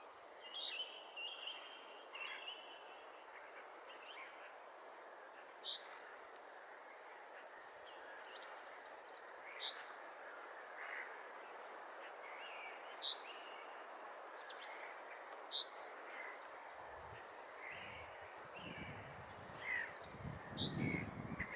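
Great tit singing its familiar spring song: short phrases of two or three quick notes, each a high note dropping to a lower one, repeated every three to four seconds. Fainter chirps from other birds sit underneath, with a low rumble in the last few seconds.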